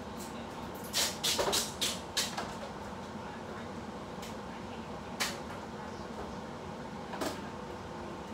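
Sharp knocks and clicks from somewhere in the house: a quick cluster of five or six about a second in, then single knocks in the middle and near the end, over a steady room hum.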